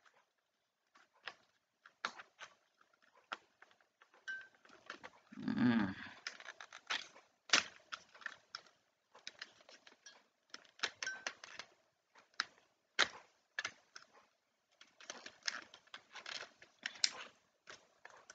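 Irregular plastic clicks, taps and small rattles from a phone holder being fitted and adjusted on a tripod head, with the sharpest clicks about seven and a half and thirteen seconds in. A brief low sound comes about five and a half seconds in.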